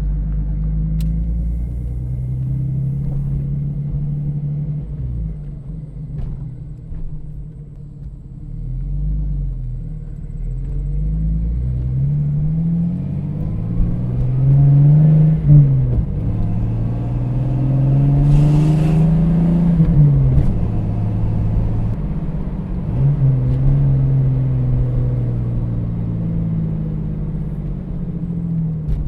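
1989 Jeep Cherokee XJ's 4.0L inline-six running through a Flowmaster 40 Series Delta Flow muffler while driving, with a deep exhaust rumble. The engine note rises several times as the Jeep accelerates, then drops back with each shift or lift off the throttle.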